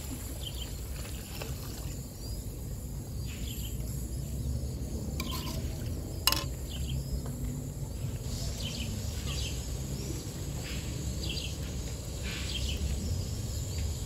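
Outdoor ambience: a steady low rumble with scattered short bird chirps. Liquid is poured into a large cooking pot of rice and vermicelli at the start, and there is a single sharp metallic knock about six seconds in.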